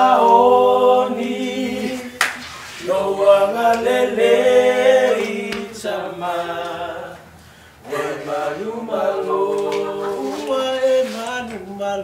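Voices singing without accompaniment in long held notes, in three phrases with short breaks about two seconds in and again around seven seconds in.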